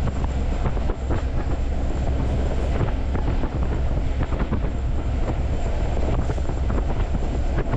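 A BNSF freight train in motion, heard from on board: a steady low rumble with many irregular knocks and rattles.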